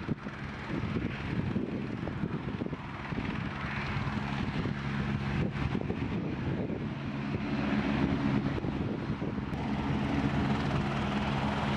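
Airbus H125 helicopter hovering low as it comes in to land: its main rotor gives a fast, steady chop over the running single turbine engine. A steady hum of several tones grows stronger from about four seconds in.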